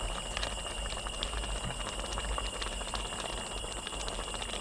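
A pot of pla daek (fermented fish) broth bubbling on a small stove while a plastic ladle stirs and scoops it, with small scattered clicks from the ladle against the pot. A steady high-pitched tone runs underneath.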